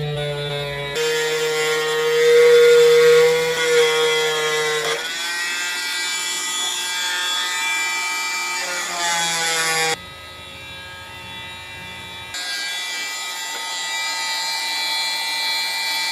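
Dremel rotary tool whining as it grinds into a block of wood, its pitch sagging and recovering. The sound changes abruptly a few times, dropping quieter about ten seconds in and picking back up a couple of seconds later.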